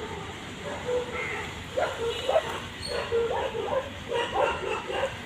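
A quick run of short, yelping animal calls, repeated many times starting about a second in.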